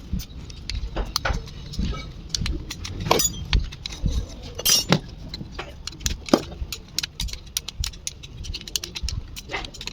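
Irregular metallic clicks and clinks of a hand tool working the 7 mm through-bolts loose on a motorcycle starter motor.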